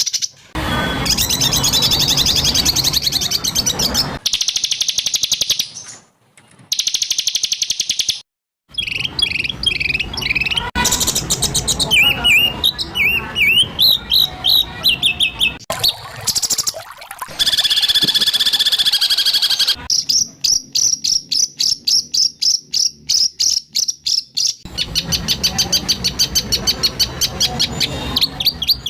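White-rumped shama (murai batu) song: harsh rapid bursts, trills and whistled phrases from spliced recordings that cut abruptly from one clip to the next, with long runs of fast repeated notes in the second half.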